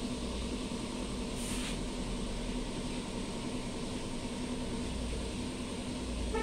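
Steady low mechanical hum and rumble, with a short hiss about a second and a half in.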